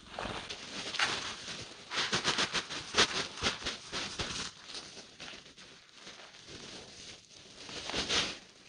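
Threshed buckwheat debris (chopped stems, chaff and seed) pouring out of a woven sack onto a spread sheet: a dry rustling patter, densest in the first half, with another burst near the end.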